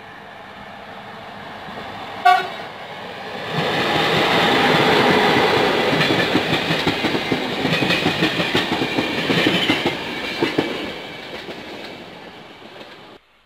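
Electric locomotive hauling a passenger train, rising as it approaches, gives one short horn blast about two seconds in, then passes close with loud wheel-on-rail noise and the clickety-clack of the coaches over rail joints. The noise fades as the coaches pull away and cuts off suddenly just before the end.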